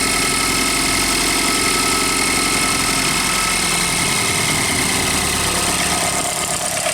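Range Rover Evoque's 2.0 turbo direct-injection engine running at idle with a rapid knocking rattle from its variable valve timing (VVT) pulleys on the intake and exhaust camshafts, a chronic fault on this engine; the pulleys are worn and breaking up.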